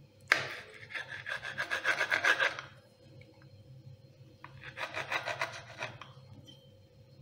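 Kitchen knife sawing through the skin of an overripe nendran banana (plantain) and onto a wooden cutting board, a rasping scrape of quick back-and-forth strokes. It comes in two spells: a longer one opening with a sharp knock just after the start, and a shorter one a little past the middle.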